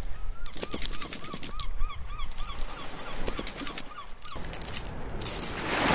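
Cartoon sound effect for an animated crab scuttling: a quick string of short squeaky notes, each rising and falling in pitch, about four a second, with light clicks, stopping about four seconds in. A rising hiss swells near the end.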